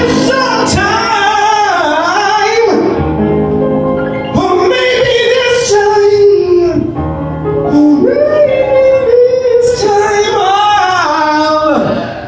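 A man singing high, long-held notes with vibrato into a microphone over a backing track, amplified through the bar's speakers. The phrases break off briefly near the end.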